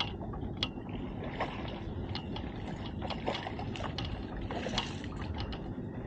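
Steady rumble of a small fishing boat at sea with water and wind noise, broken by scattered sharp clicks from the spinning reel and tackle as a fish is wound up to the boat's side.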